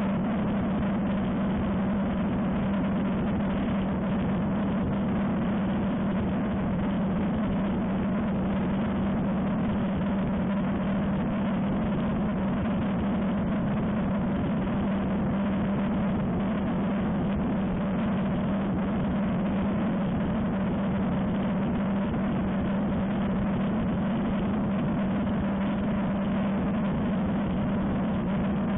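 Ultralight aircraft engine and propeller droning steadily in cruise flight, a constant low hum with wind rushing past the wing-mounted camera.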